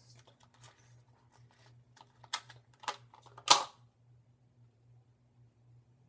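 A run of sharp clicks and light knocks from small objects being handled at a bathroom sink, the loudest about three and a half seconds in, over a low steady hum; after that only the hum remains.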